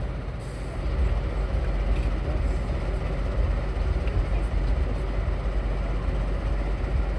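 Diesel locomotive running with a steady low rumble that gets a little louder about a second in.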